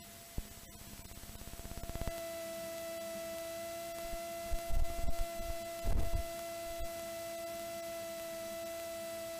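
A steady, single-pitched electronic tone with a fainter tone an octave below and higher overtones, swelling in over the first two seconds and then holding. A few dull low bumps come about halfway through.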